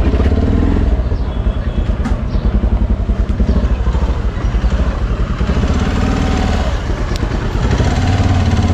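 Hero XPulse motorcycle's single-cylinder engine idling, with a fast, even exhaust pulse. The exhaust has been modified for its sound.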